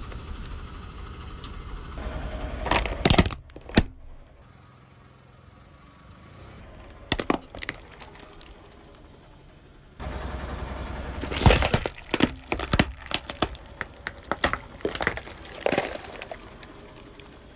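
A car tyre crushing plastic objects, including a plastic toy truck and plastic drink cups, which crack and snap as they break. There is a burst of cracks a few seconds in, a few more in the middle, and a long run of snapping in the second half, over the low rumble of the car's engine.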